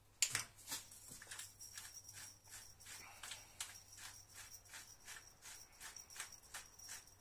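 Pepper grinder being twisted over a bowl, a run of short gritty crunching clicks about three a second, after one sharp click right at the start.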